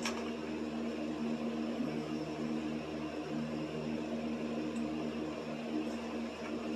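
Steady electrical hum with a whir of air from a running appliance, and a sharp click right at the start.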